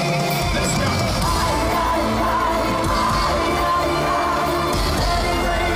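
A live band playing pop music with singing over an arena sound system, heard from among the audience.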